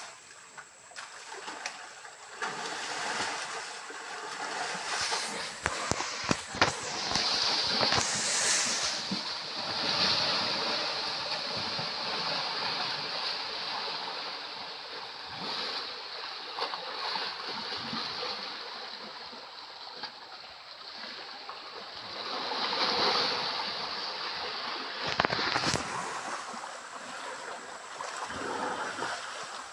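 Muddy stream water splashing and sloshing as elephants wade and push at each other in it, over the rush of the flowing stream. A steady high-pitched buzz comes in about eight seconds in and stops abruptly near the end.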